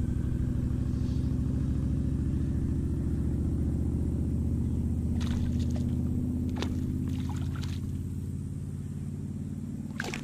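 A steady low motor-like hum made of several pitches, with a few short splashy sounds in the middle; near the end a hooked fish splashes at the water's surface as it is brought in by hand.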